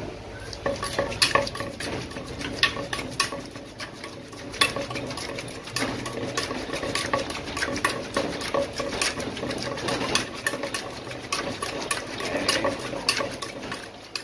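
Wooden pestle knocking in a clay mortar and a metal spoon scraping and turning green papaya salad as it is bruised and tossed. The knocks are irregular, about one or two a second, over a steady rustle of the shredded papaya.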